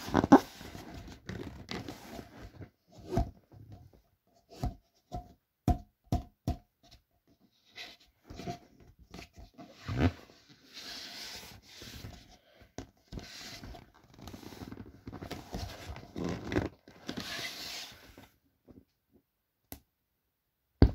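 Hands pressing and rubbing the vinyl walls of an inflatable Intex paddling pool to squeeze the air out during deflation. Scattered crackles, knocks and short squeaks of plastic sheeting give way to longer stretches of rustling in the second half.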